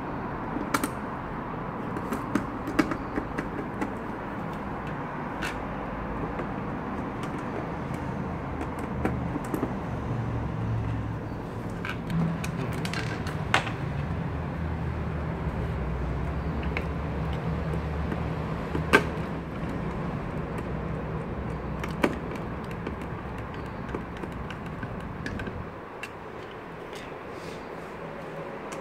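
Scattered light clicks and taps of a screwdriver, screws and small metal parts against finned aluminium camera housings and a metal mounting panel, over a steady low hum that fades out near the end.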